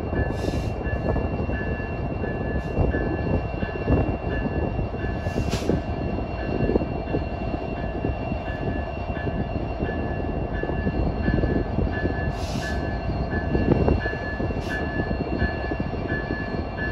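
Diesel freight locomotive running with a steady, dense rumble. A high tone pulses on and off about one and a half times a second throughout, and there are four short hisses, the loudest about five seconds in.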